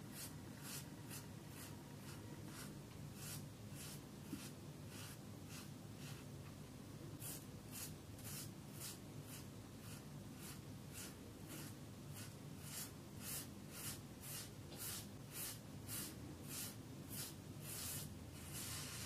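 Rockwell 6C safety razor scraping stubble off a lathered scalp in short, quick strokes, about two a second, each a faint crisp rasp. The strokes grow louder and more regular from about seven seconds in.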